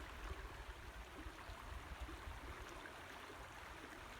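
Faint steady rushing of moving water, with a low unsteady rumble underneath.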